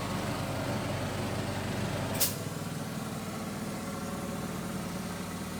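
Air compressor running with a steady hum. About two seconds in comes a short, sharp hiss of released air and the deepest part of the hum drops away, typical of the compressor cutting out. Other lighter machine hum carries on.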